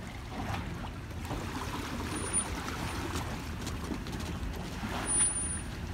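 Steady low rumble of a Toyota SUV reversing slowly down a grooved concrete boat ramp with a boat trailer in tow, with a few faint clicks.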